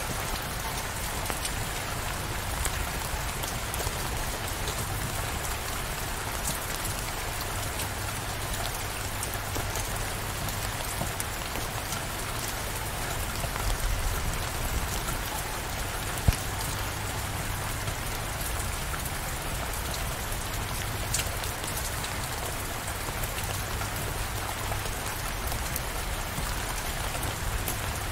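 Steady rain falling, an even hiss scattered with the ticks of individual drops. One sharp tick stands out about halfway through.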